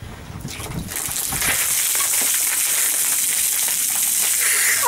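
A bucket of ice water poured over a person's head, a steady rushing splash of water on head, shoulders and clothes that builds about a second in, after a few low knocks at the start.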